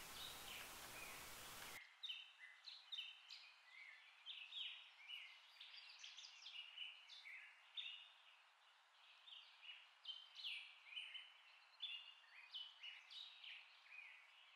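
Faint birdsong: birds chirping in many short, quick notes. A steady hiss under it cuts off suddenly about two seconds in.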